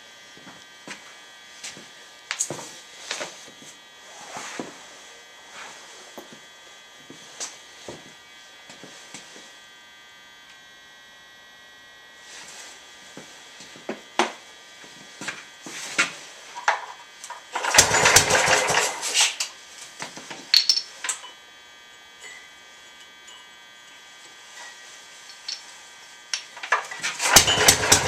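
Scattered clicks and knocks, then about two-thirds in a 1947 Gladden Busy Bee 3 HP single-cylinder engine fires for about two seconds and dies. Near the end it starts and runs with a fast, even firing beat.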